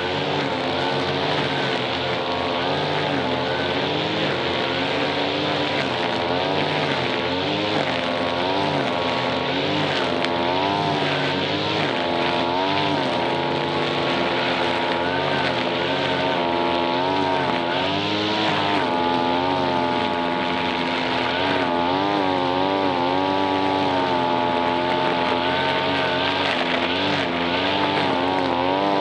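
Petrol brush cutter running continuously, its engine pitch dipping and rising over and over as it cuts grass.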